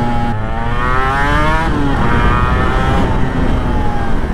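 Honda NSR250R MC21's two-stroke V-twin engine pulling under acceleration. Its note climbs, falls away sharply just under two seconds in, then climbs again and levels off, over steady wind noise.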